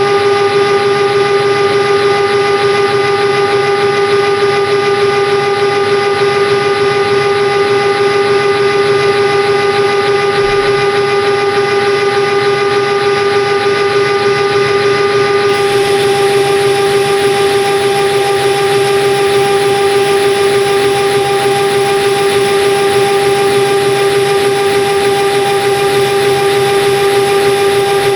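A metalworking machine tool running steadily while cutting steel, with a constant whine and a hiss of cutting noise. The hiss changes in character about halfway through.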